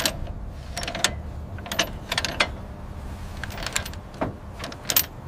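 Ratchet chain binder being worked tight on a log load's chains: irregular metallic clicks and clanks of the ratchet and chain, over a steady low rumble.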